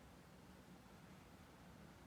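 Near silence: a quiet pause between a Boston terrier's snores.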